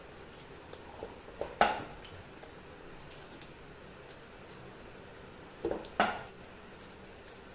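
Eating at a table: faint chewing and bread-handling clicks, with two sharp knocks of drinking vessels set down on the table, about a second and a half in and again about six seconds in.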